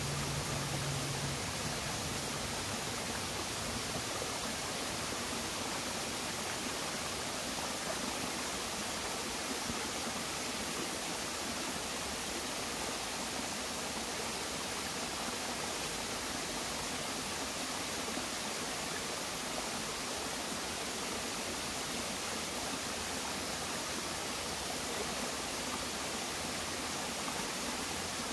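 Small forest stream running steadily over rocks in a low cascade, an even rushing of water.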